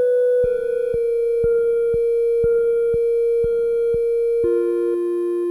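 Electronic music: a held, pure synth note over a steady click about twice a second. Near the end the clicks stop and the held note steps down lower.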